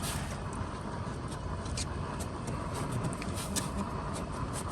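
Steady low rumble of a motor vehicle, with scattered light clicks and scrapes over it.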